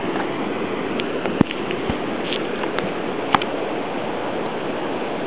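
Steady rushing wash of ocean surf on a beach, with two sharp clicks, about a second and a half and three and a half seconds in.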